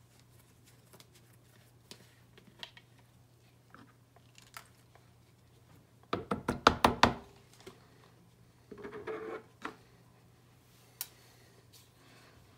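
A plastic gold snuffer bottle squeezed over a water-filled plastic gold pan, squirting out its flour-gold concentrate: a quick run of sputtering spurts about six seconds in, lasting about a second, then a shorter squirt a few seconds later. Small taps and clicks of the bottle against the pan come and go over a faint steady hum.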